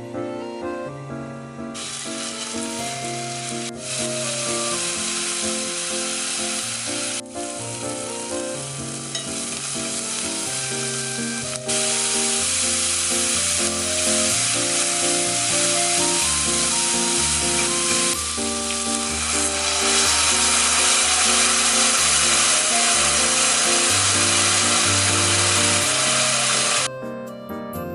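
Food frying in hot oil in a pan, a steady sizzle that starts about two seconds in and stops abruptly near the end, with soft background music underneath.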